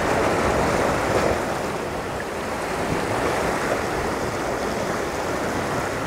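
Ocean surf washing against shoreline rocks: a steady rushing of water.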